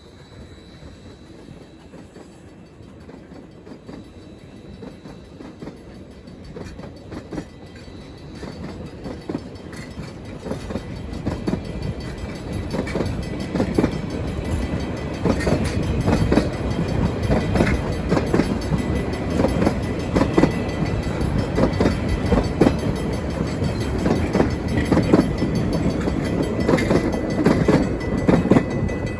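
Passenger train approaching and passing close by, growing steadily louder over the first half. Then the wheels rumble and click sharply over the rail joints.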